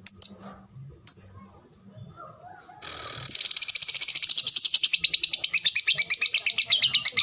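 Lovebird giving a couple of short single chirps, then from about three seconds in a long, fast chattering trill of rapid repeated notes, about ten a second, unbroken: the sustained 'ngekek' song that song-lovebird keepers breed and train for.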